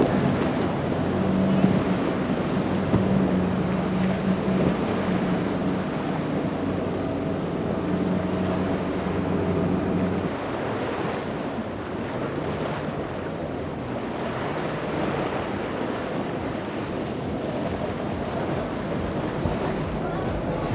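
Outboard engine running steadily as a center-console boat passes at speed, over rushing spray and waves, with wind on the microphone. The engine note drops lower and fades about halfway through.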